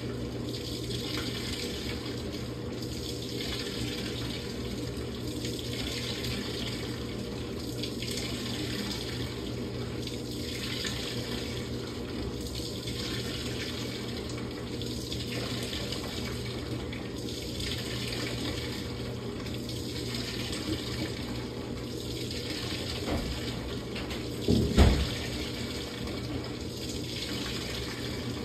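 Samsung top-load washing machine filling with water early in a quick wash cycle: water rushing steadily into the tub over a low hum, swelling about every two seconds. One short low thump about 25 seconds in.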